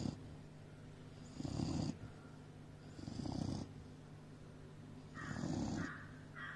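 Doberman snoring, with three snores about two seconds apart.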